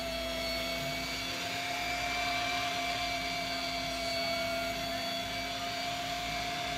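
Sportfishing boat's engines running steadily under way, a constant drone with a fixed whine, over the rush of wind and water.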